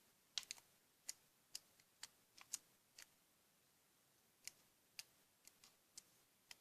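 A series of short, sharp clicks and ticks at irregular intervals, about fifteen in all, in near silence.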